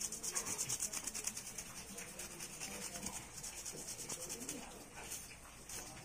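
A small brush wet with thinner scrubbing the solder side of a DC ceiling fan's circuit board in quick back-and-forth strokes, about eight a second. The strokes are hardest in the first two or so seconds, then go on more lightly.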